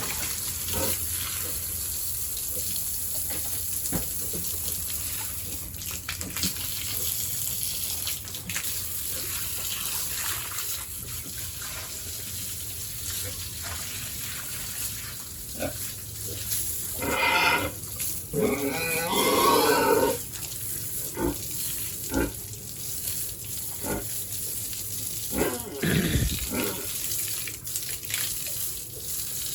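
Pigs grunting and squealing, loudest in a burst of calls about two-thirds of the way through, over a steady hiss.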